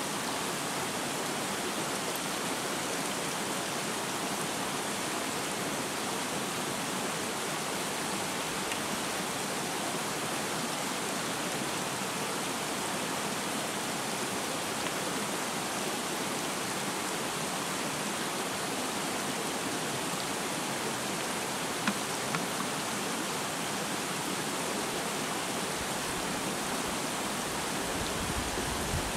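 Steady rush of flowing stream water, with two or three faint clicks about two-thirds of the way through.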